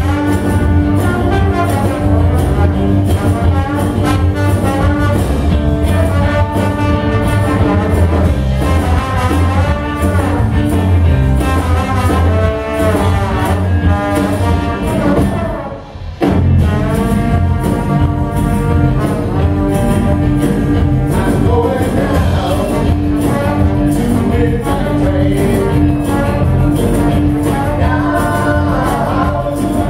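Live band playing, with a trombone over electric guitar, bass guitar, drums and tambourine. The band drops out briefly about halfway through, then comes back in.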